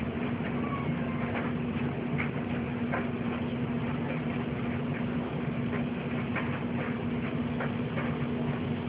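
A steady low hum over a background hiss, with faint, irregular ticks scattered throughout.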